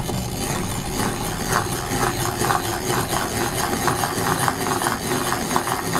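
Hand-cranked rotary egg beater whisking cake batter in a glass bowl: a steady whirring rattle with quick, regular clicks, several a second.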